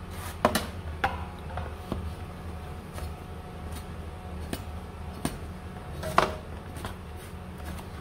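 A metal slotted spatula clinking and scraping against a baking pan as meat pies are turned, in short irregular knocks, the loudest about half a second in and just after six seconds, over a low steady hum.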